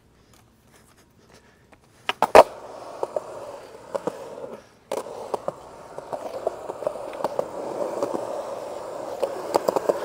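Skateboard wheels rolling on concrete, starting about two seconds in with a sharp clack of the board on the ground. The rolling is dotted with small clicks, breaks off briefly near the middle, and gets louder toward the end.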